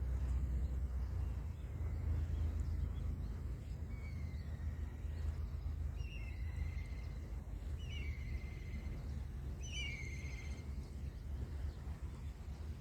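A bird calls four times, about every two seconds, each call a whistled note falling in pitch, the later ones a short higher note dropping into a longer one, over a steady low rumble.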